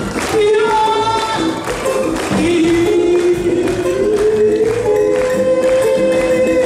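Live folk song: a woman singing with acoustic guitar accompaniment and a steady percussion beat, holding one long note through the second half.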